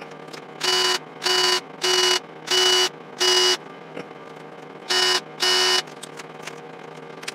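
Power drill with an abrasive bob spinning in short bursts against a metal gauge panel, whining and grinding for about a third of a second each time as engine-turned swirls are cut one by one. Five evenly spaced bursts come, then a pause, then two more.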